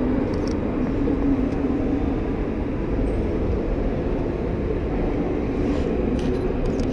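Moving escalator running with a steady mechanical rumble and hum. A few short clicks, from a camera shutter firing, come about half a second in and again near the end.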